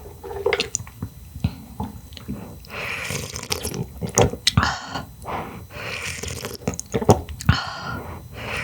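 Close-miked slurping of hot clam broth, about four long slurps a second or so apart, with short sharp clicks between them.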